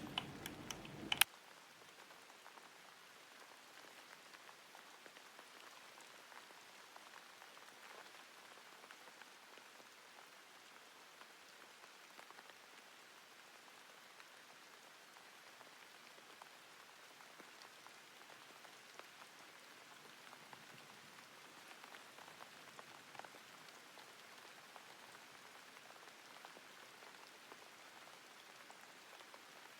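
A couple of sharp clicks in the first second, then a faint steady hiss like light rain, with scattered soft ticks.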